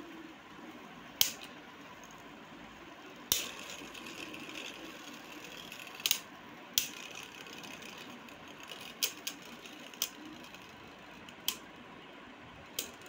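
Two Beyblade Burst tops, Victory Valtryek and Storm Spriggan, spinning on the plastic-covered floor of a cardboard-box stadium: a steady whir of the spinning tips, broken by a sharp clack each time the tops collide, about eight times.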